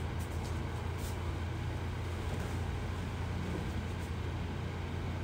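Steady low hum of background noise, with a few faint soft clicks.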